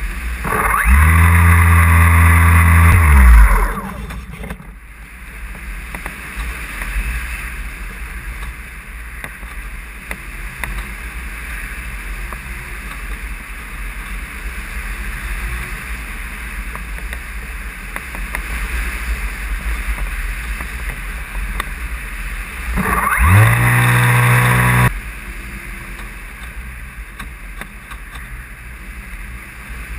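Radio-controlled model plane's motor and propeller, heard from on board: the motor runs up to a loud, steady hum for about three seconds near the start and again for about two seconds some twenty seconds later, winding down each time it cuts off. Between the runs there is only a steady rush of air over the airframe and microphone.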